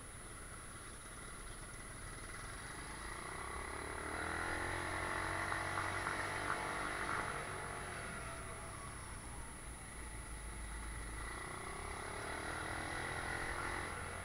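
Motorcycle engine running, its pitch rising and falling and loudest about halfway through, over a low rumble. A faint steady high whine runs underneath.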